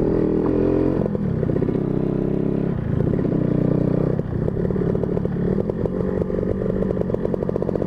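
Motorcycle engine with a large carburettor breathing through an air filter box, running while being ridden, its revs stepping up and down with the throttle several times. In the second half it drops to low revs with separate, evenly spaced firing beats.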